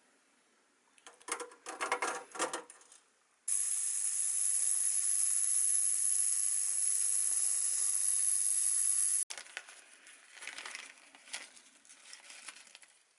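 Small metal parts clinking and rattling, then a steady pressurised spray hissing for about six seconds that stops abruptly, as used to clean out a carburettor. Light handling clicks follow.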